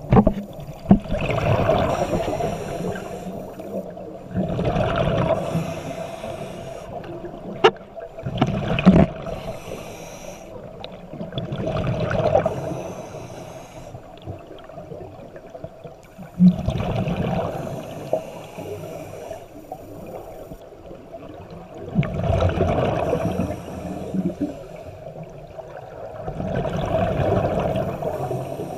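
Scuba diver breathing through a regulator underwater: a rushing burst of exhaled bubbles every four to five seconds, about seven in all, with quieter stretches between them and a couple of sharp clicks near the middle.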